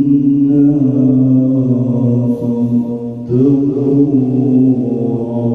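Melodic Quran recitation (qira'ah) by a reciter holding long, ornamented sung notes, with a break about three seconds in. It is heard through a sound system with a tap-delay echo effect on the vocal.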